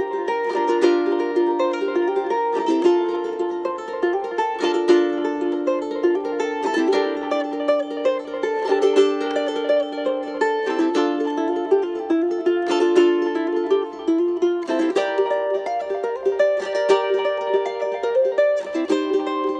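Flight Victoria Soundwave tenor ukulele played solo: plucked notes over ringing chords, with the chord changing about every four seconds.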